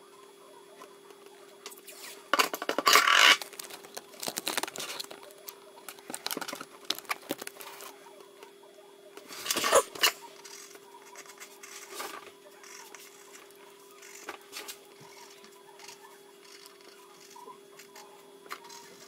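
Pencil and eraser scratching and rubbing on paper in irregular bursts, loudest about two to three seconds in and again about ten seconds in, over a steady hum.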